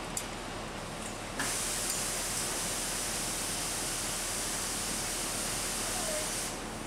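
Steam hissing from garment-pressing equipment, starting abruptly about a second and a half in and cutting off shortly before the end, over a steady background rush.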